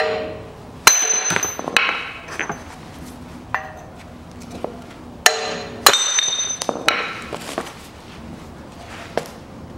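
Hammer blows on a steel socket used as a drift, knocking the front wheel hub out of its bearing in the steering knuckle. The strikes come irregularly, the heaviest about a second in and around five to six seconds in, several ringing metallically.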